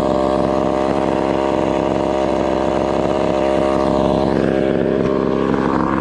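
Gas chainsaw running at a steady idle close by. From about four and a half seconds in its note turns uneven.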